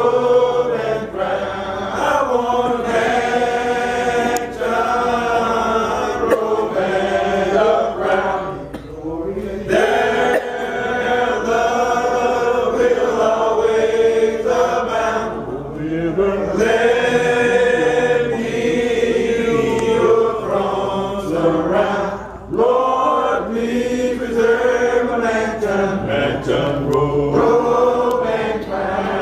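Congregation singing a hymn a cappella, with no instruments. The voices hold long notes in phrases several seconds long, with brief breaks between them.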